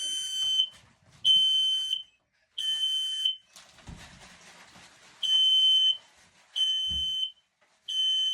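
Smoke alarm sounding its test: six high-pitched beeps in two groups of three, the temporal-three fire evacuation pattern.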